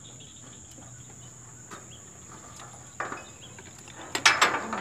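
Steady high-pitched insect chirring. Shortly before the end comes a quick cluster of sharp clicks and knocks, as of hardware on the line cart being handled.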